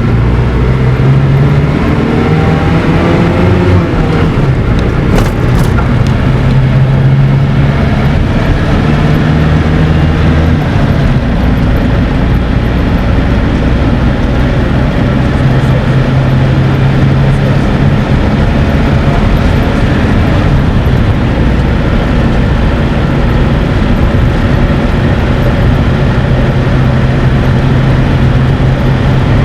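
A road vehicle's engine running steadily under road noise. Its pitch shifts now and then, and rises briefly a few seconds in.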